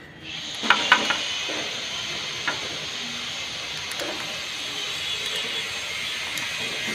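Metal clicks from a wrench loosening the cylinder head nuts of a Hero Honda Splendor engine, a cluster about a second in and single ones later, over a steady high hiss.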